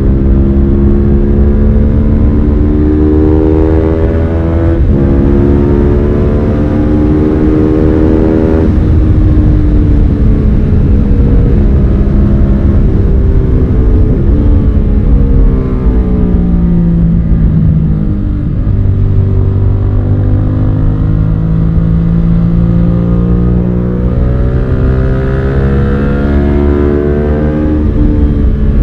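Suzuki SV650's 645 cc V-twin engine pulling hard under acceleration, its pitch climbing and dropping at upshifts about five and nine seconds in. Later it eases off, with the pitch falling, and then climbs again near the end.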